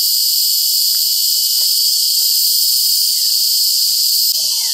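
Loud, steady chorus of insects, a continuous high shrill that holds without a break.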